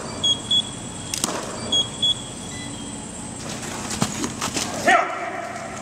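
Two quick double beeps from a camera's autofocus confirmation, one pair just after the start and another about two seconds in, over the steady hum of a large hall. A short voice-like call comes near the end.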